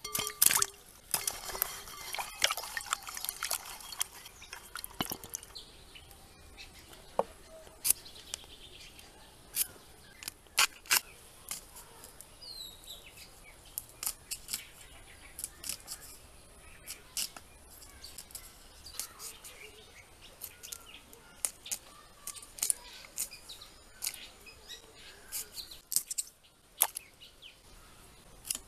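Water splashing as spiny gourds are handled in a tub, then a long run of short crisp cuts and snaps as the gourds are trimmed and sliced against a boti, the curved floor-mounted kitchen blade. Birds chirp in the background.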